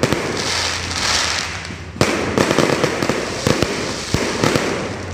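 Aerial firework shells bursting: a sudden loud bang right at the start and another about two seconds in, each followed by a long spell of dense crackling.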